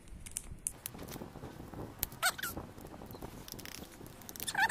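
Kinder Joy egg's foil wrapper crinkling and crackling as it is peeled and torn off by small fingers, in light scattered crackles. Two short, high, voice-like squeaks, one about two seconds in and one near the end.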